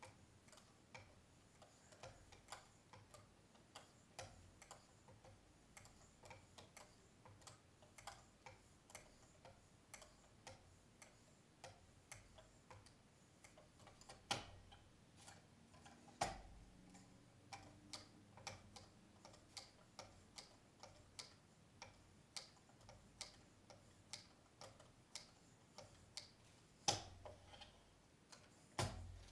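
Faint, even ticks, about two to three a second, from a lapping film on a ceramic sharpening paddle being stroked across a pocket knife's clamped blade on a Work Sharp Precision Adjust sharpener, with a few louder clicks near the middle and end. This is the final polishing stroke toward a mirror edge with 0.3 micron film, which is running silky smooth.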